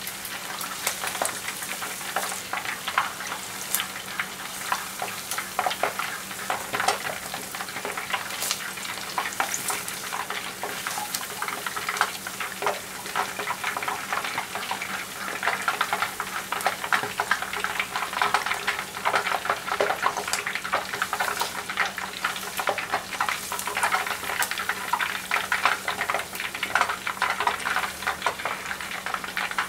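Hot oil crackling and sizzling steadily around pieces of marinated chicken karaage deep-frying in a pot. The pieces are nearly done and are being lifted out with chopsticks.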